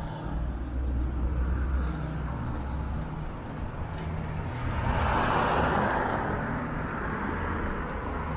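A car passing on the street: its tyre noise swells to a peak about five seconds in, then fades, over a steady low rumble.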